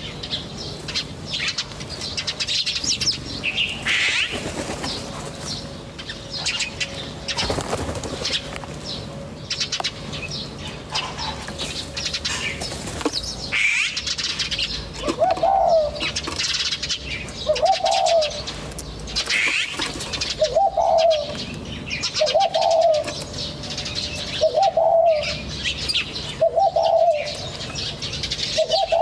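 Several small birds chirping and twittering. About halfway in a lower, arched call joins them and repeats roughly every second and a half to two seconds, with a few brief rustles between.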